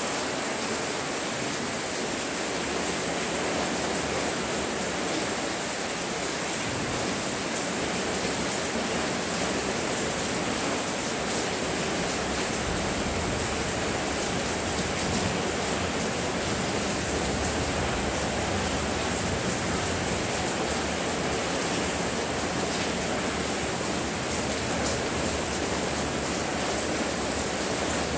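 Steady downpour of monsoon rain, an even wash of noise; the sound grows fuller and deeper after about six seconds.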